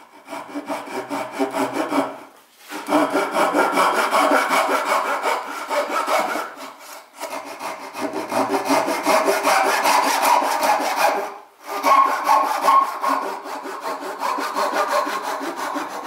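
Japanese pull saw cutting a half-lap joint in a wooden rail, with fast, steady strokes. The sawing stops briefly three times and then carries on.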